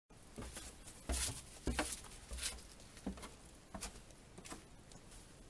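Footsteps across a debris-strewn floor in an abandoned house: a step about every 0.7 seconds, each with a sharp crackle and a low thud, loudest near the start and fading after a few seconds.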